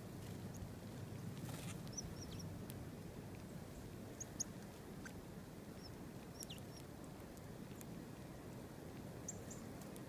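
Small songbirds giving short, sharp, high chip notes, some dropping quickly in pitch, scattered singly and in small clusters over a faint steady rush of background noise.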